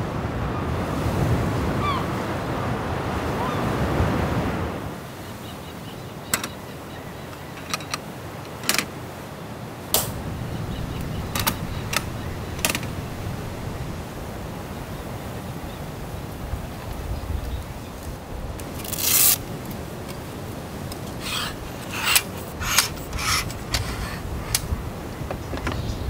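Sea waves breaking and washing ashore for the first few seconds. Then scattered sharp clicks, clacks and rustling of straps and fittings as a car rooftop tent is unfastened, with a longer rasp about two-thirds of the way through and a quick run of clicks near the end.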